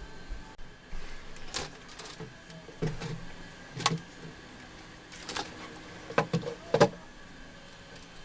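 A handful of sharp knocks and clicks at irregular intervals, like hard objects being handled and set down, with the loudest two close together near the end.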